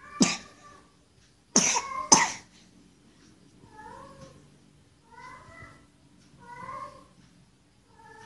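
Three short, loud coughs in the first two and a half seconds, then a cat meows four times at an even pace, each meow a short call that rises and falls in pitch.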